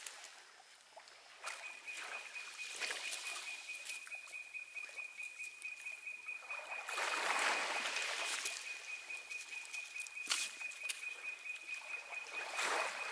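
Small waves washing gently on a coral-gravel shore, swelling twice, with a steady high-pitched pulsing trill from a calling night creature that starts about a second and a half in. A few light clicks are heard over it.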